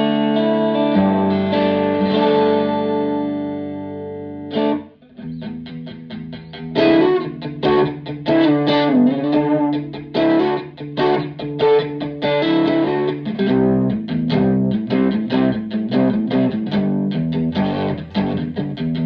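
Fender Telecaster electric guitar played loud through a Fender Blues Junior IV tube amp. Sustained chords ring and fade for the first few seconds. After a brief gap comes a run of picked single notes and short riffs, with one string bend.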